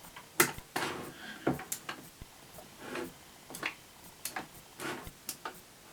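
Push buttons on a Westinghouse/EPCO elevator panel being pressed over and over, giving a string of sharp, irregular clicks.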